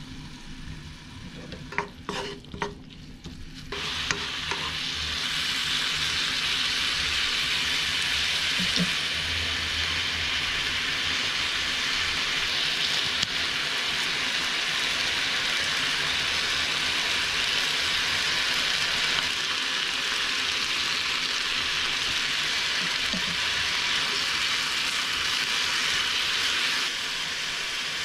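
Pork and vegetables stir-frying in sauce in a frying pan, stirred and tossed with a wooden spatula. A few light clicks come first; about four seconds in, a loud sizzle starts and holds steady.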